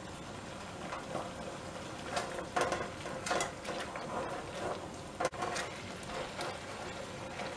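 A spatula stirring raisins in a stainless steel pot of boiling, nearly reduced sugar syrup. The syrup keeps up a steady sizzling bubble, broken by irregular scrapes and clicks of the spatula against the pan.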